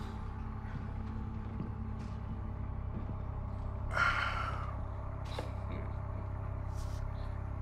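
Low, steady rumbling drone, with one brief sharp sound and a short falling squeak-like tone about four seconds in.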